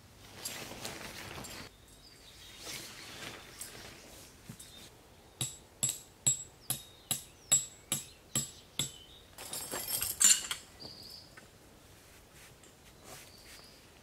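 A run of about ten sharp metallic strikes, roughly three a second: a tent peg being hammered into the ground. Rustling noises come before the strikes, and a louder rustle comes just after.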